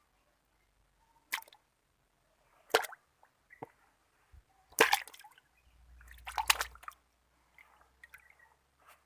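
Water splashing and sloshing in separate short splashes, about five of them, the loudest near five seconds in and a longer slosh just after six seconds.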